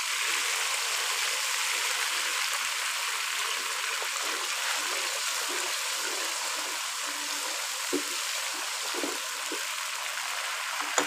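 Hot ghee with browned onion and ginger-garlic paste sizzling and bubbling hard in a pot just after a splash of water has gone in, the water boiling off in the fat. A wooden spatula stirs through it, giving a few light knocks against the pot in the second half.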